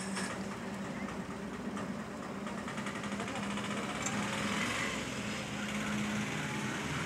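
A motor vehicle engine running steadily, with a low hum, amid street traffic noise that grows a little louder toward the end.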